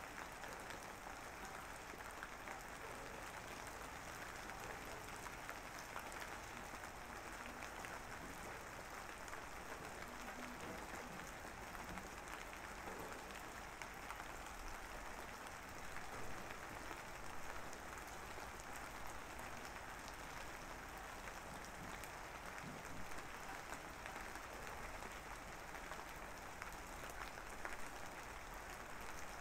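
A steady, even hiss with fine crackling throughout, like rain or applause-type noise, with no music or voice.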